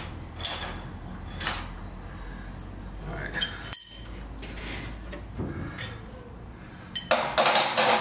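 Steel winding bars clinking and knocking in the winding cone of a garage door torsion spring as the spring is unwound a turn at a time. There is one sharp, ringing metallic clink about four seconds in, and a louder burst of noise near the end.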